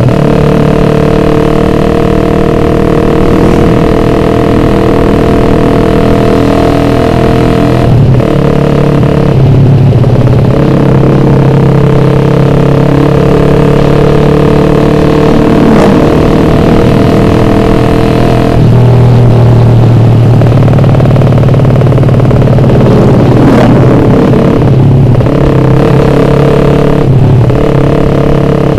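Suzuki Satria F150 with a ported head running through a loud road-race exhaust, ridden at speed. Its single-cylinder four-stroke engine holds a steady note, which breaks and steps in pitch at gear changes several times.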